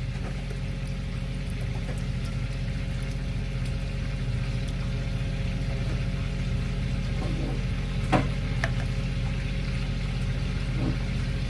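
Pineapple juice pouring from a can onto raw chicken pieces in a glass bowl, a steady trickle over a low electrical hum, with a single light knock about eight seconds in.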